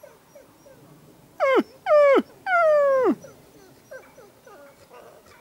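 Wolves in a pack whining: three loud falling whines near the middle, the last one longest, over faint short whimpers that come and go.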